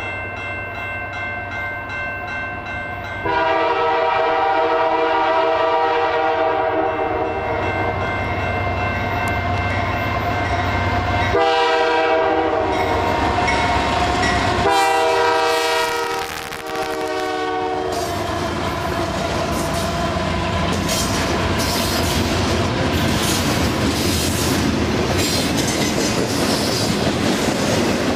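Canadian Pacific diesel locomotives sounding their horn in a run of blasts as they approach and pass, the last few blasts short, the horn stopping a little past the middle. After that, the steady rumble of the double-stack container cars rolling by, with rhythmic clickety-clack from the wheels on the rail.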